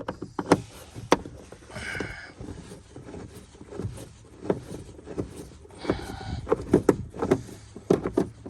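Hand tools and plastic car door trim being worked: a string of irregular clicks and knocks, with two brief creaks about two and six seconds in.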